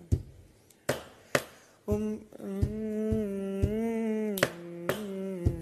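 A man hums the melody of the song without words, starting about two seconds in. Sharp clicks keep time about twice a second, and before the humming there is a brief lull with only a few of them.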